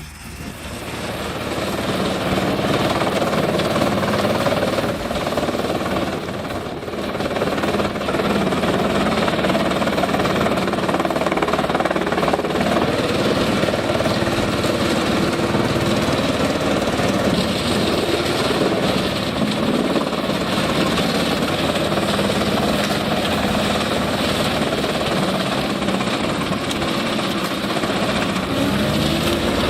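Heavy wood-processing machine running under load: a loud, steady mechanical din with a constant rumble and rattle. It swells up over the first couple of seconds and dips briefly about six seconds in.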